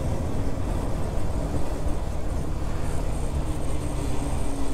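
Motorcycle riding at road speed: a heavy rush of wind on the microphone, with a steady engine note underneath that rises slightly in pitch near the end.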